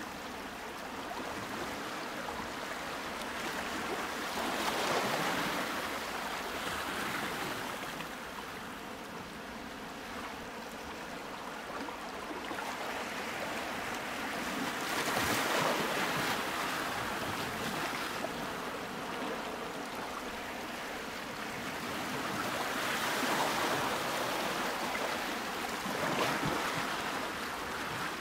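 Ocean waves washing in and drawing back: a steady rushing hiss that swells three times, roughly every eight to ten seconds.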